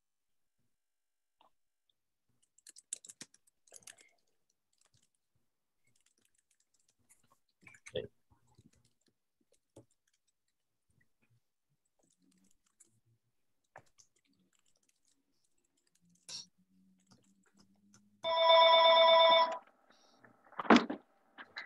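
Faint scattered clicks, then near the end a loud electronic ringing tone lasting about a second, followed by a short loud noise.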